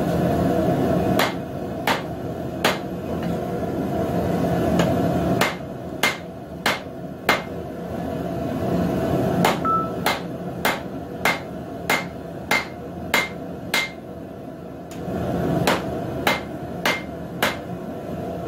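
Hand hammer striking hot square steel stock on an anvil's rounded edge, drawing it down to slim the stem of a forged leaf. The blows come a few at first, then in a steady run of about one every half second with a short metallic ring on each. A steady low rushing noise runs underneath.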